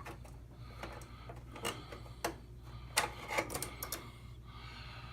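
Irregular light clicks and taps of a replacement rotary wash-temperature switch being turned and pushed against its mounting in a washer control panel, over a steady low hum.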